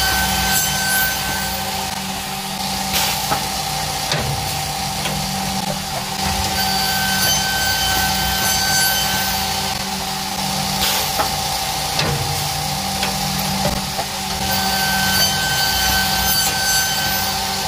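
CNC wood shaper running, its spindle cutter cutting wooden handle blanks. A steady machine hum carries a higher whine that comes and goes about every eight seconds, with a few sharp clacks along the way.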